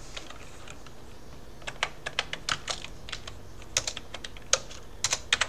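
Typing on a computer keyboard: irregular key clicks in short runs, starting about a second and a half in.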